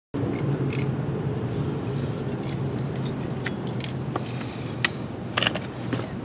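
Scattered light metallic clicks and clinks from a Jeep Grand Cherokee WJ front driveshaft's double cardan (CV) joint as it is worked by hand, with its worn centre piece, over a steady low rumble. A couple of sharper clinks come about five seconds in.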